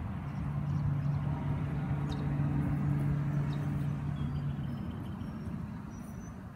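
A motor vehicle engine running with a steady low hum, which fades out about five seconds in.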